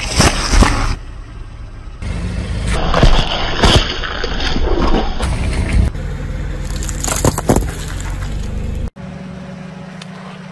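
Car tyre rolling over and crushing things on asphalt: a watermelon squashing at the start, then clusters of sharp cracks and pops as further objects burst under the tyre, in three separate bursts, each clip cutting off abruptly.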